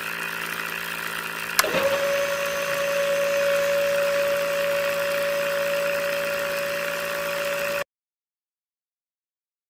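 Small electric motors on a homemade drilling rig whirring steadily. A click about a second and a half in brings in a steady hum, and the sound cuts off abruptly near the end.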